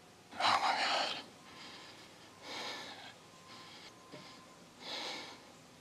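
A man breathing hard close to the microphone: three deep breaths about two seconds apart, the first the loudest. It is the excited breathing of a hunter watching a very large buck.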